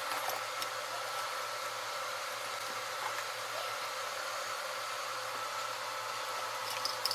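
1996 Ford Mustang engine idling, a steady hiss with a faint high whine from the belt-driven accessories, which the owner puts down to the power steering pump. The new AC compressor is not yet switched in.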